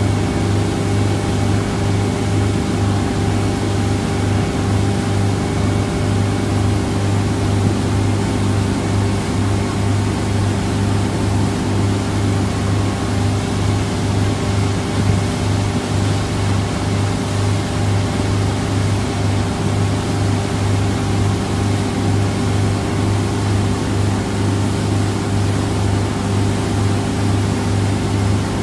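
Motorboat engine running at a steady cruising speed, a constant low drone, over the rushing noise of the hull and its wake on the water.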